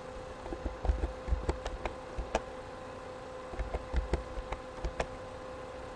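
Computer keyboard keys being typed in two short bursts of clicks, over a steady electrical hum.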